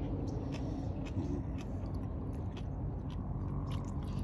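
A person chewing and biting food close to the microphone, a run of small irregular clicks and crunches, over a steady low background rumble.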